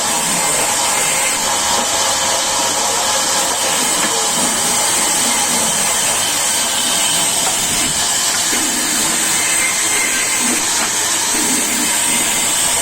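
Sawmill saw running steadily through timber, a constant loud, dense cutting noise with a faint steady whine underneath.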